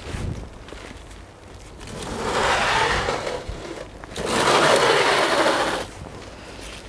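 Aluminium greenhouse sliding door scraping along its metal track, in two long rolling pushes of about two seconds each; the second starts and stops abruptly.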